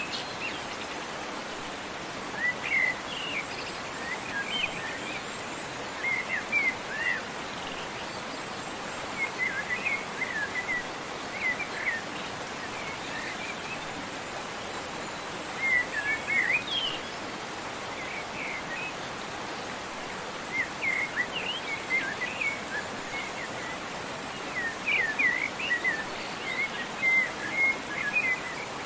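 Small birds chirping in short clusters of quick, high, sweeping notes every few seconds, over the steady rush of a waterfall.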